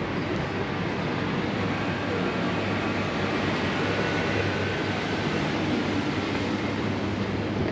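Steady rumble of city street traffic, with a faint high squeal in the middle.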